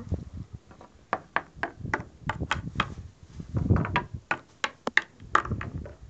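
Small plastic toy figures tapping and clicking against a wooden tabletop as they are moved by hand: a run of light, irregular taps, a few to the second, with some duller knocks about midway.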